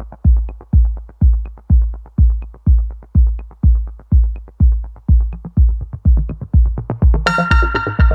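Forró music intro: a deep electronic kick drum thumping steadily about twice a second, with a light tick on every other beat. Fuller instrumentation with sustained keyboard-like notes comes in about seven seconds in.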